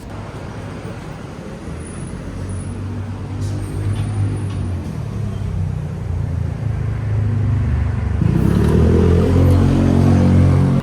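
A motor vehicle's engine grows steadily louder as it approaches. About eight seconds in it gets louder still and rises in pitch as it accelerates, then it cuts off abruptly.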